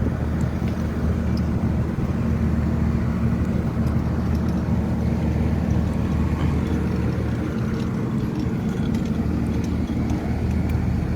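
A machine's engine running steadily at a constant speed, a low, even drone with no change in pitch.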